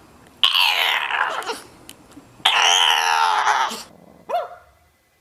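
A dog giving two long, drawn-out cries of about a second each, then a short yip near the end.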